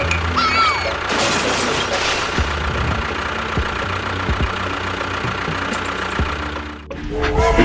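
Steady mechanical running noise of a motor, with a short tone that glides up and then down about half a second in. The sound drops briefly and changes near the end.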